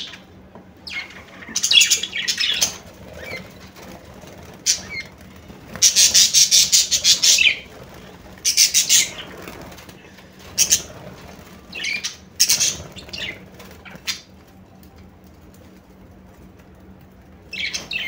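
A flock of budgerigars chirping in short high-pitched bursts on and off, with wings flapping as birds flutter about; the longest burst is a rapid run of chatter about six seconds in.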